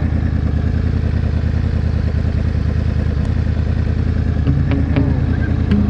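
Yamaha R1 sportbike's inline-four engine running steadily at low speed, with no revving. A few musical notes come in near the end.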